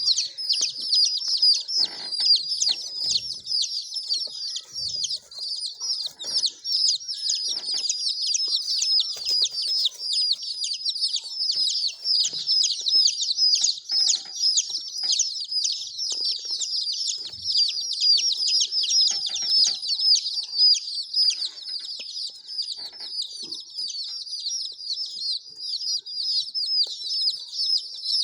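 A brood of baby chicks peeping nonstop: many short, high, downward-sliding cheeps overlapping one another.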